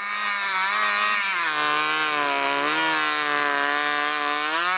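The 500cc snowmobile engine of a snow-bike scooter running under throttle as it rides through powder. The engine note drops a little about a second in, holds, then climbs again near the end.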